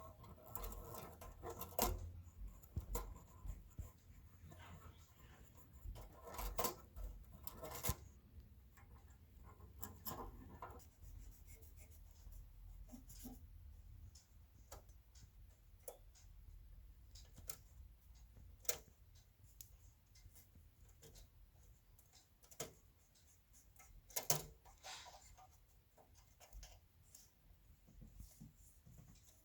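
Hands working on the parts of a 1929 Royal Model P typewriter: scattered clicks and taps of small metal parts, with soft scraping and rubbing between them.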